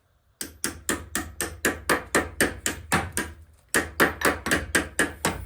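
A rapid series of hammer blows, about four a second, with a brief pause a little past halfway before the hammering resumes.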